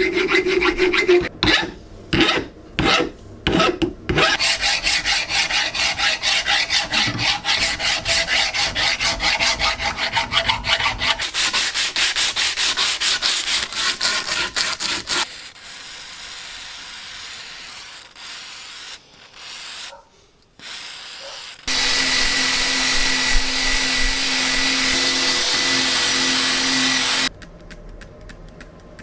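A hand file rasping across an iron tube handle in separate strokes. Then sandpaper is rubbed quickly back and forth along the tube. Later a steady loud noise runs for several seconds and cuts off suddenly.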